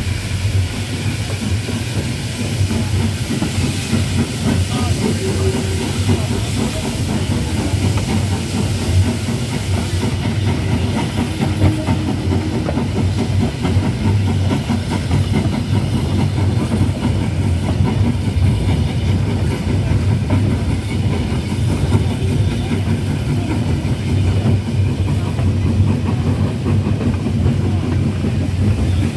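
Small steam tank engine working a passenger train, steam exhaust hissing and chuffing over the rumble and clatter of the carriage wheels on the rails.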